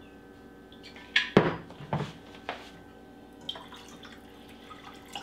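Milk poured from a jug into a metal measuring cup and then into a saucepan, with a few sharp knocks and clinks from the jug and cup between about one and two and a half seconds in.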